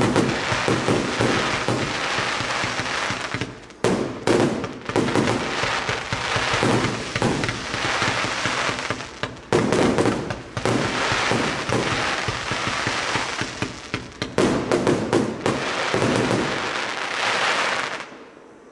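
A 1.2-inch, 100-shot Z-shape fireworks cake firing in rapid volleys: many sharp launch shots and bursts over a dense hiss from the strobe and willow effects, stopping about 18 seconds in when the cake finishes.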